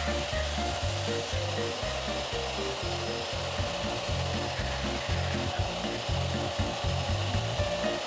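Vacuum cleaner running, its nozzle rubbing along a surface, under background music with a stepping bass line.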